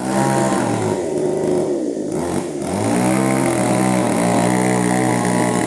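Two-stroke chainsaw running at part throttle; its engine note sags for about a second and a half, then climbs back and holds steady.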